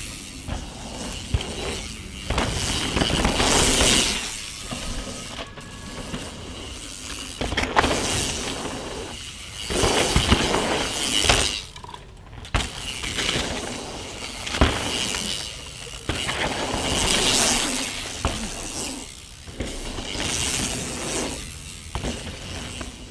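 Mountain bike ridden down a dirt and rock trail: knobby tyres crunching and skidding over dirt, stone and leaves, with clatter from the bike. The sound comes in repeated surges every couple of seconds.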